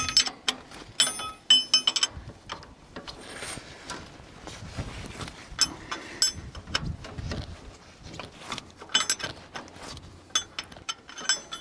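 Wrench clinking and clicking on the bolts and housing of a 1948 Farmall M's starter as it is unbolted, in clusters of sharp metallic clicks with quieter gaps between. The starter is coming off so its armature can be turned off a suspected bad spot.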